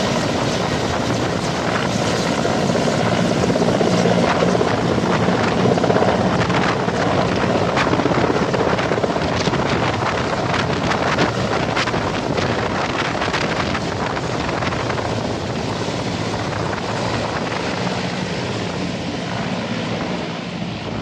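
Mil Mi-17 military transport helicopter's turbines and main rotor running at lift-off power as it rises and hovers over the helipad. The sound then fades gradually as it flies away, dropping further near the end.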